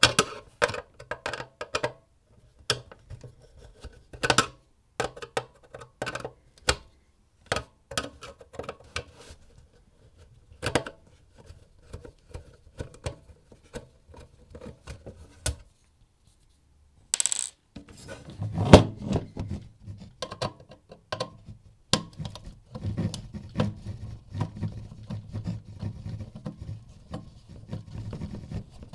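Small parts of an electrical appliance being handled during a repair: scattered sharp metallic clicks and clinks. A little past halfway there is a brief gap, a short high hiss and a knock, followed by denser rubbing and shuffling handling noise.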